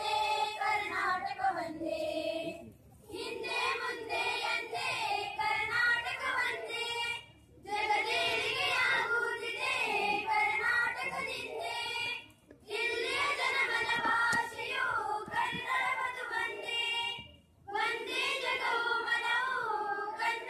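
A group of schoolgirls singing a song hailing Karnataka in unison into microphones, in phrases of about four to five seconds with a short breath between each.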